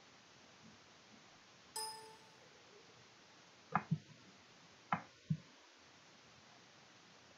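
A single bright ping that fades within a second, then two double clicks of a computer mouse button, each a press and a release, about a second apart.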